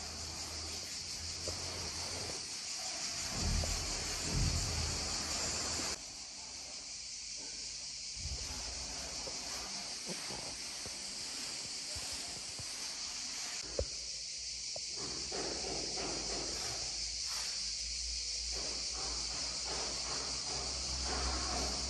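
A steady high-pitched hiss, with faint low thumps and a few sharp knocks now and then.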